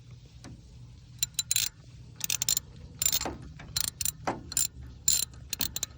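Ratchet wrench clicking in short runs of strokes, a burst every half second to a second, as a thermostat housing bolt is backed out.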